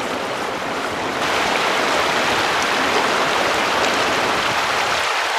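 Shallow river riffle flowing over stones: a steady rushing of water that steps up suddenly in loudness about a second in.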